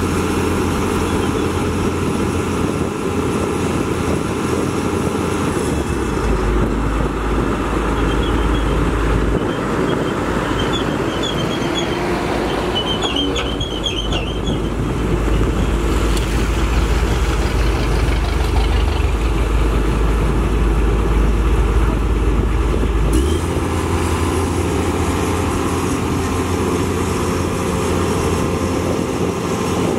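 Komatsu PC210 hydraulic excavator's diesel engine running steadily under load while it digs and swings soil. The engine note changes about six seconds in and again near 23 seconds.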